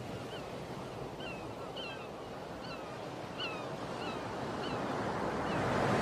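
Sea surf washing in a steady hiss that slowly grows louder, with short high bird chirps repeating about twice a second.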